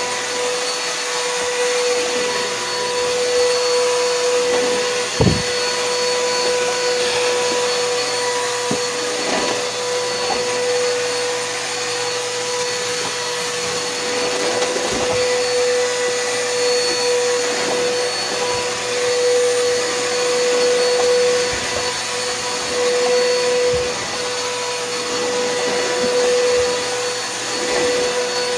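Bissell PowerForce Helix upright vacuum cleaner running steadily with a high whine over its rushing airflow, with a brief knock about five seconds in.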